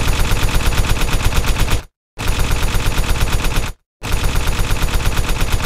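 Machine-gun fire sound effect: a very even run of rapid automatic shots, about a dozen a second, in three long bursts broken by brief silences about two and four seconds in.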